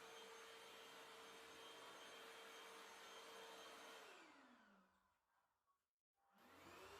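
Cordless vacuum cleaner motor running with a steady whine and hiss. About four seconds in it spins down with a falling pitch to silence, then spins back up with a rising whine near the end.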